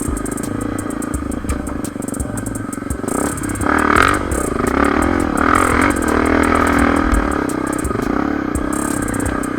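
Trail motorcycle engine running and revving up and down, with brief rises about four and five and a half seconds in. Background music plays along.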